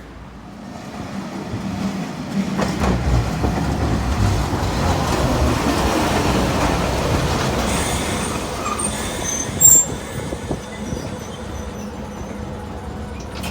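Streetcar running on rails, growing louder and then fading as it goes by, with a short sharp squeal from the wheels near the ten-second mark.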